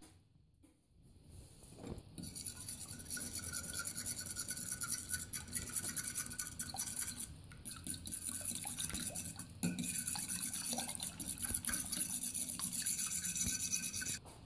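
Eggs being beaten by hand in a ceramic bowl: a fast, continuous scrape and clatter of the utensil against the bowl, pausing briefly twice and stopping abruptly near the end.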